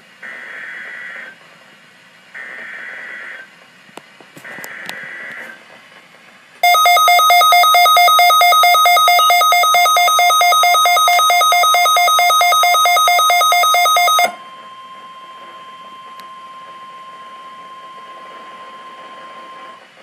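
Emergency Alert System header on weather radio: three short buzzy data bursts, each about a second long with a second's gap, then a loud, harsh pulsing alarm tone about six seconds in. The alarm cuts off around fourteen seconds in, leaving the weather radio's steady single-pitch alert tone running on until near the end.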